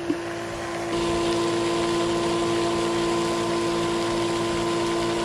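Battery-powered bait-bucket aerator pump humming steadily, with a rush of water noise that grows louder about a second in.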